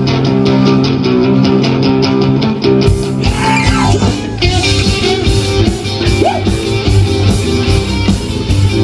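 Live rock and roll band playing the instrumental intro of a song, the guitar driving a fast, even rhythm over a steady bass line. About three seconds in the full band comes in with drums and cymbals.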